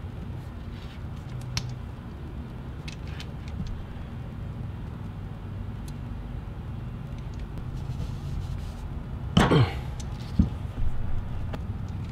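Hand lever cable-lug crimper pressing a copper ring terminal onto heavy battery cable. A few light clicks come as the lug is set in the dies, then one loud short burst about nine and a half seconds in as the handles close on the lug, and a sharp click a second later. A steady low hum runs underneath.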